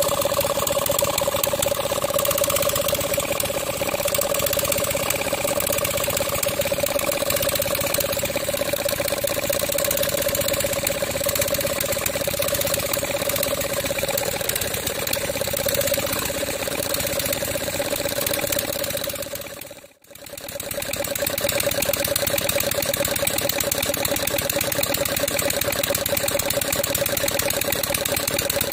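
Small stationary diesel engine driving a water pump, running steadily with a fast, even beat and a steady whine. The sound dips away briefly about two-thirds of the way through and comes straight back.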